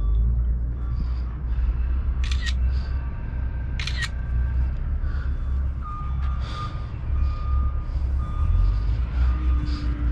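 Two camera shutter clicks about a second and a half apart, over a steady low rumble. A vehicle's reversing alarm beeps repeatedly in the background during the second half.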